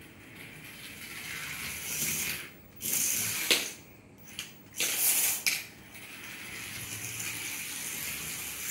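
A small toy radio-controlled car's electric motor and plastic gears whirring in several short runs, then a longer one near the end, with one sharp click about three and a half seconds in.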